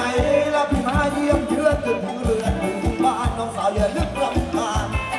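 Live band playing up-tempo Thai ramwong dance music: a steady kick-drum beat about four times a second under a sung melody.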